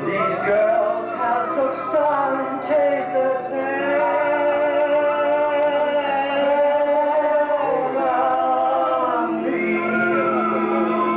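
Show-tune music with singing voices holding long notes over band accompaniment, and a few short high percussion taps in the first few seconds.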